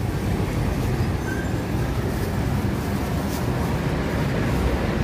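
Steady roadside traffic noise: a continuous low rumble of passing vehicles.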